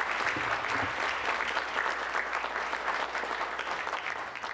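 Audience applauding, with a dense patter of many hands clapping that slowly fades toward the end.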